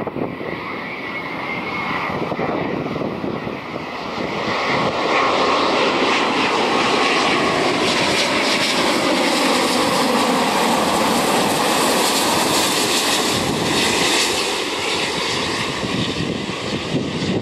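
Airbus A350-941's Rolls-Royce Trent XWB turbofan engines at approach power as the airliner passes low overhead on its landing approach. The jet noise builds to a loud, steady roar about five seconds in, with a whine that slides down in pitch as it passes, then eases a little near the end.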